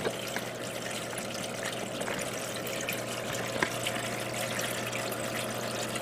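Water running in a thin sheet down the back panel of a waterfall spray booth and splashing into its trough, a steady rushing trickle over a constant low hum from the booth.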